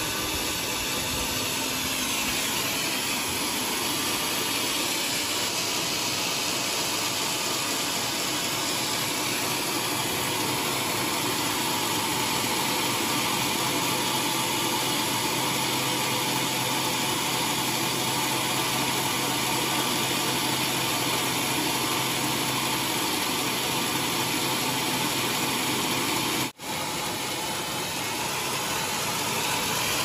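Large band sawmill running steadily as its blade saws through a big teak log, with a momentary break near the end.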